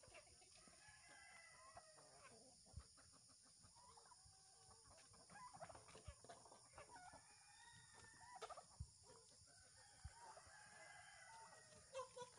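A flock of free-range chickens, hens and roosters, clucking faintly and repeatedly as they crowd around a feed pan.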